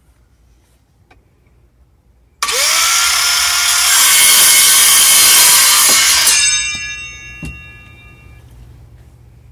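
Cordless power saw cutting through a PVC pipe, starting suddenly about two and a half seconds in and running loud for about four seconds. After the cut the blade and motor spin down with a ringing whine that fades over about two seconds, with a single knock partway through.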